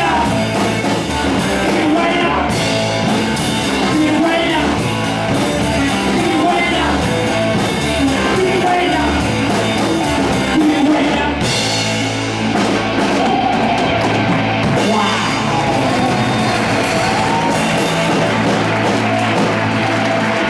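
Live rock band playing: singing, electric guitar, bass guitar and drum kit. The busy drumming stops about halfway through and the band carries on with sustained, ringing chords.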